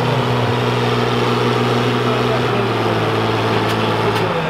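Volvo BM 800 tractor's engine idling steadily, hitched to the pulling sled before its run; the engine note changes about four seconds in.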